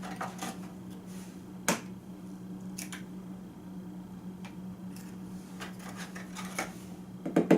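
A few light clicks of eggs being handled, then near the end a quick run of sharp knocks as an egg is tapped against the rim of a plastic mixing bowl, its shell slow to crack.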